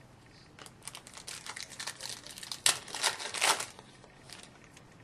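A hockey card pack's wrapper crinkling as it is handled and opened, with the loudest bursts a little past halfway and again about a second later.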